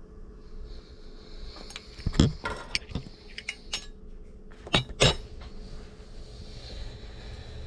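Spoon clinking and knocking against dishes in a kitchen, a scatter of sharp clicks with the two loudest knocks close together about five seconds in.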